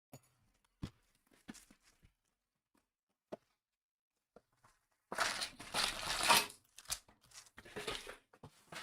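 Packaging being handled, with a few light clicks and taps. About five seconds in, it crinkles and tears loudly in two bouts.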